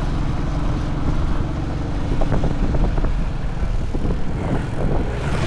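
An engine running steadily with a low drone, amid general outdoor noise.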